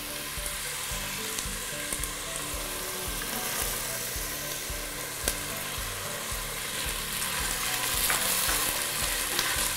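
Chopped onion and garlic sizzling in hot oil in a stainless steel pot, with a spoon stirring, and one sharp tap about five seconds in.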